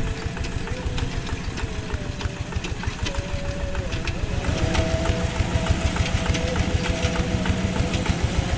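Diesel engine of a two-wheel walking tractor running steadily while it pulls a plough through wet paddy soil, with a fast, even beat of firing strokes. A whining tone rides over it and steps up in pitch about halfway through.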